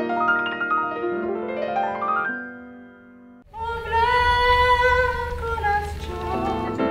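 Music: piano-like notes climbing in a rising run fade away, then a woman's voice holds one long sung note over a low rumble, and keyboard notes come back near the end.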